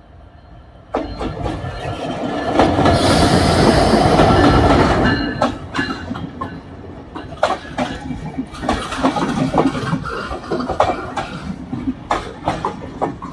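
A train passing at speed. A loud rushing noise starts suddenly about a second in, swells to its loudest a few seconds later, then gives way to a run of sharp wheel clacks over the rail joints.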